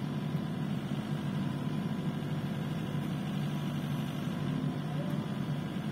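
Compact excavator's diesel engine running steadily, a low even hum with no change in pitch.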